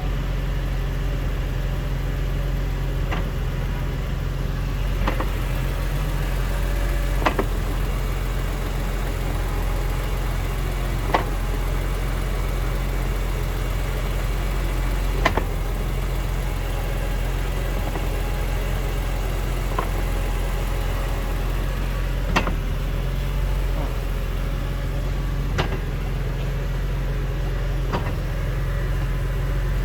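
BMW E46 M3's S54 straight-six engine running steadily, with a short sharp clunk every few seconds, about nine in all. The clunk comes as the clutch reaches its engagement point and the throttle is lifted and reapplied. It is a driveline noise the owner cannot place: it comes from near the transmission, heard at the rear driver side inside the car, and the bushings and flex disc have been checked and found good.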